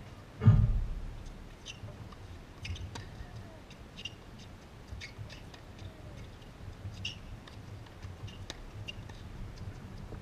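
Tennis ball hits during a rally: short, sharp pops of racket on ball, and of ball on court, every second or so. A loud, low thump about half a second in is the loudest sound.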